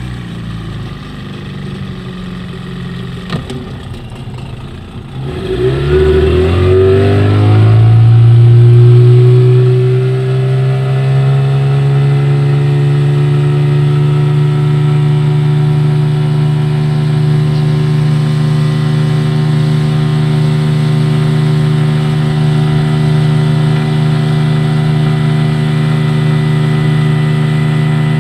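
Mercury 15 hp outboard motor running at low throttle, then opened up about five seconds in: its pitch rises for a few seconds and then holds steady at high revs as the boat runs at speed.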